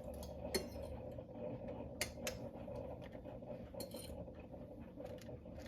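Faint clinks and taps of ceramic plates and utensils being handled, a few separate knocks over a steady low hum.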